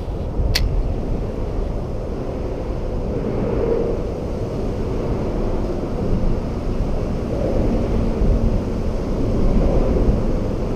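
Steady low rumbling background noise, with one sharp click about half a second in.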